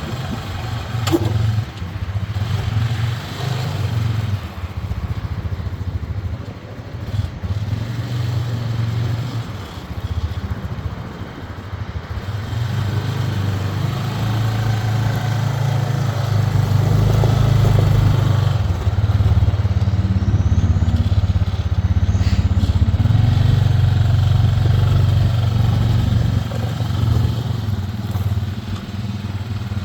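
TGB Blade SLX 600 ATV engine running, its loudness rising and falling throughout and loudest through the middle and later part.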